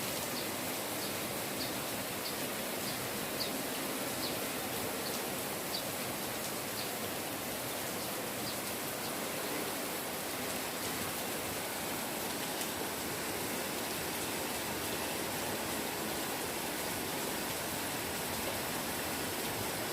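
Light, steady drizzle falling, an even hiss of rain. A faint short high chirp repeats every half second or so until about halfway through.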